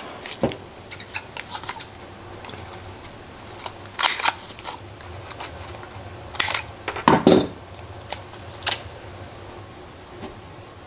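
Scissors snipping a piece off a sheet of glue dots, with a few sharp snips and small clicks of handling on a tabletop, the loudest near the middle.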